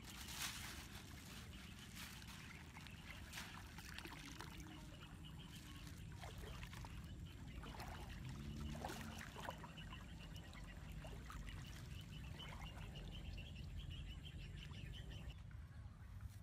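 Shallow water splashing and trickling around someone wading, with a plastic bag rustling and a few sharp crinkles early on, over a low rumble. A rapid, high pulsing chirp runs in the background from about six seconds in and stops abruptly near the end.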